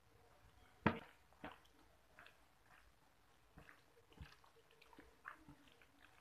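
Bare fingers mixing rice into a wet egg curry on a plate, making soft squelches and a scatter of small sharp clicks, the loudest about a second in.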